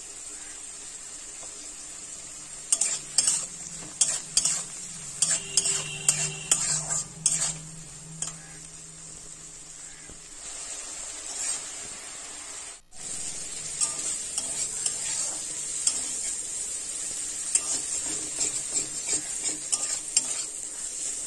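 Prawns sizzling in hot oil in a kadai while a metal spatula stirs them, scraping and knocking against the pan in a run of clicks during the first half. The sizzle drops out for a moment about two-thirds of the way through, then returns louder.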